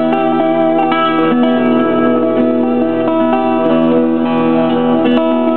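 Twelve-string acoustic guitar played fingerstyle: a steady stream of picked notes ringing over a sustained bass note.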